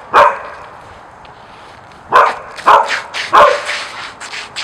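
Australian shepherd puppy barking: one short bark at the start, then three short barks in quick succession about two to three and a half seconds in.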